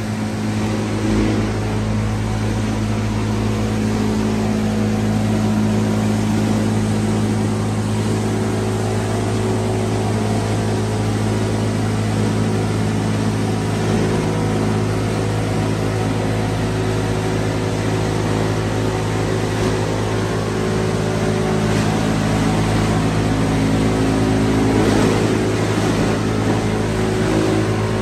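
Heavy-duty plastic film crusher line running: a loud, steady machine hum under an even rush of mechanical noise.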